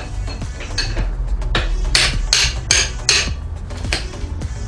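Hammer striking metal, knocking out the lower shock-mount bolt of a Honda Grom's rear suspension. A few lighter taps, then about four hard blows in quick succession, roughly three a second.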